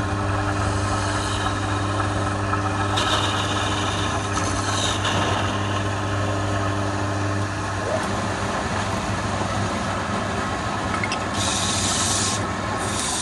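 Electric wood lathe running with a steady motor hum while a hand-held turning chisel cuts the spinning wood, giving hissing scrapes about three seconds in and again near the end.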